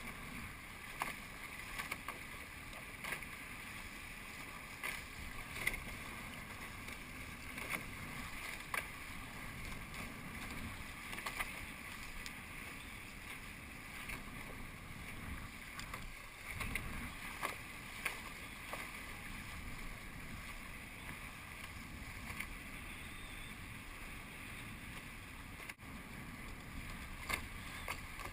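Water rushing and splashing past the hulls of an A-class catamaran sailing upwind, with frequent short slaps of small waves against the hull and wind on the microphone.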